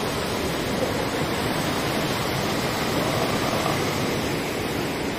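Swollen, muddy river rushing over rocks in white-water rapids below a bridge, a steady, unbroken sound of running water.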